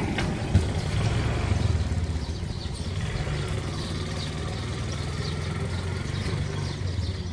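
An engine running steadily with a low, even hum. A single sharp knock comes about half a second in, and birds chirp faintly near the end.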